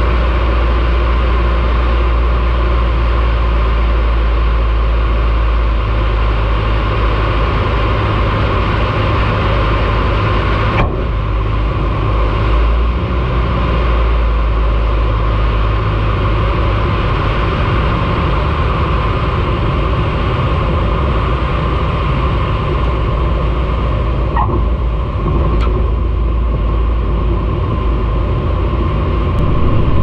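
Light aircraft's engine and propeller running steadily with airflow noise, heard from an onboard camera on the landing approach: a loud, even drone with a deep rumble. The sound dips briefly about eleven seconds in.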